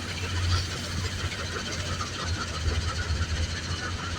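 Heavy diesel machinery running: a steady low engine drone with irregular clattering over it.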